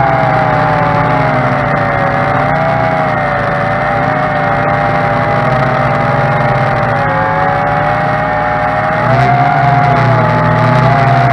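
Tarantula X6 hexacopter's six motors and propellers whining in flight, picked up by a camera mounted on the drone. Several close pitches waver up and down together as the throttle changes, growing a little louder in the last couple of seconds.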